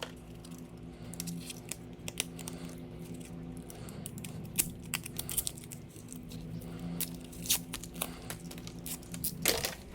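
Scattered clicks, taps and rustles from tools and parts being handled, over a steady low hum.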